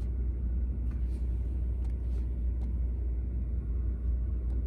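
A steady low rumble, with a few faint light ticks scattered through it.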